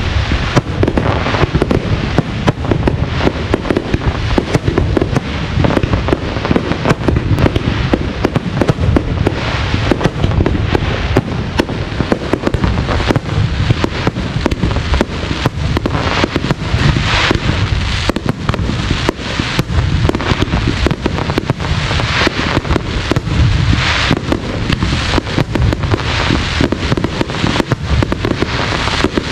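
Aerial fireworks display: shells launching and bursting one after another, a steady run of sharp bangs over continuous crackling with no pause.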